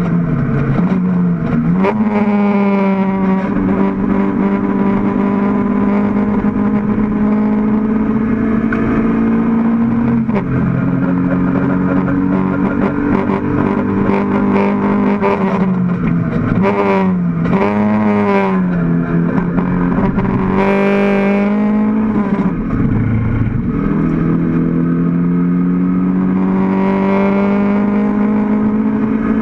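In-car sound of a Mk1 Toyota MR2 race car's four-cylinder engine running hard on track, holding a steady high note for long stretches. The pitch dips briefly about a second in, around ten seconds and around twenty-three seconds, with a cluster of quick falls and rises about sixteen to nineteen seconds in.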